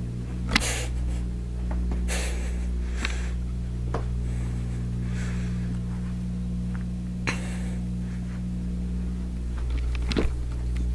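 A steady low hum, with a few short rustling and handling noises from a handheld camera being moved, spread through the stretch.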